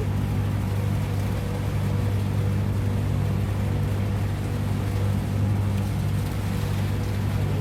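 Patrol boat's engines running at a constant speed: a steady, even low drone that does not change.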